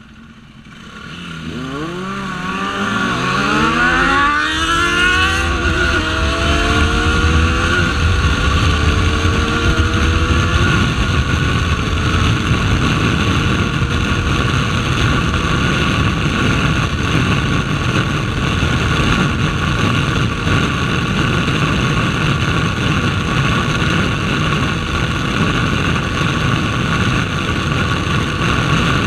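KTM RC 390's single-cylinder engine pulling away hard from a standstill, the revs climbing and dropping back through several quick upshifts, then running steadily at speed under heavy wind and road noise.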